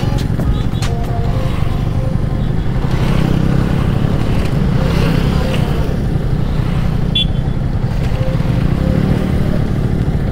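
Motorcycle running steadily while being ridden, a continuous low engine and road rumble.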